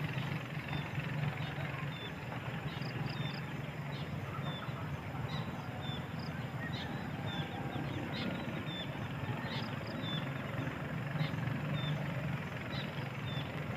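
Outdoor ambience: a steady low rumble with a short, high chirp repeating roughly every half second.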